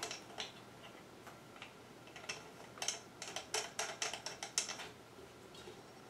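Light clicks and ticks from a ceiling fan light kit's glass bowl and metal finial cap as the cap is screwed back onto the rod under the bowl. The sound is faint, with a quick run of small ticks, about four a second, for a couple of seconds in the middle.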